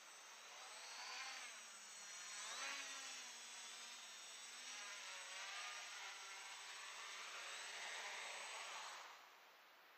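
Electric motors and propellers of a small multirotor drone whining, the pitch rising and falling as the throttle changes, then cutting off about nine seconds in.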